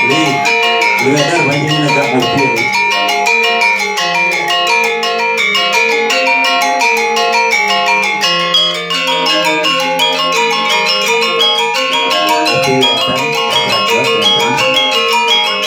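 Balinese gamelan music: bronze metallophones ringing in fast, even, interlocking strikes. A wavering lower part comes in about a second in and again near the end.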